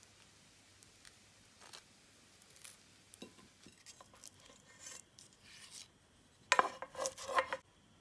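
Light scrapes and taps of a wooden spatula against a frying pan and a ceramic plate as a fried egg is slid onto toast, then a louder, ringing clatter of cookware for about a second near the end.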